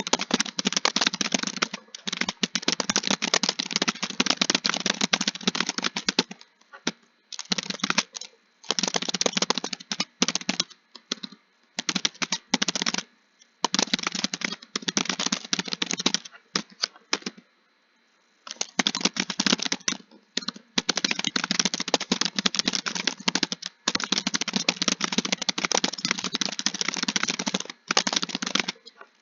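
Rapid typing on a keyboard, fast keystrokes in long runs broken by short pauses, the longest pause about two-thirds of the way through.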